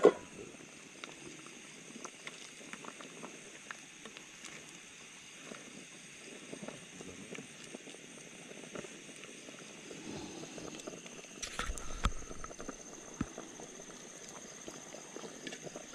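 Pot of asam pedas fish stew simmering: a faint, steady bubbling with tiny pops, with a soft knock about twelve seconds in.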